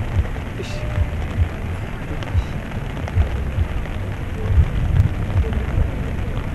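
Buddhist sutra chanting, a continuous rough wash of voices under a dense noisy haze, with irregular low thumps about twice a second.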